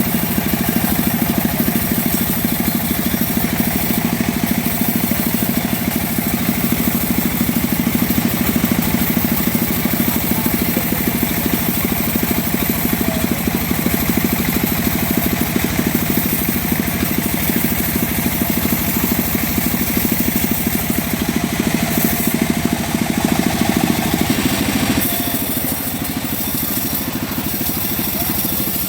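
The engine of a homemade sawmill running steadily, easing off a little near the end.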